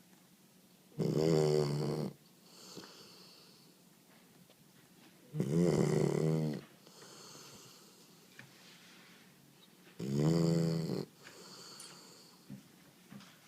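A sleeping dog snoring: three loud, buzzing snores about four and a half seconds apart, each followed by a softer breath out.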